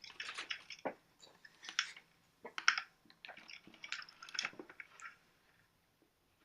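A plastic mechanical keyboard being handled: small clicks, knocks and rustles of plastic in five or six short irregular bursts, as the height-adjustment feet on its back are worked.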